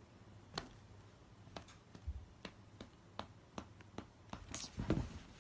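A series of faint, irregular clicks and taps, about a dozen, coming closer together near the end.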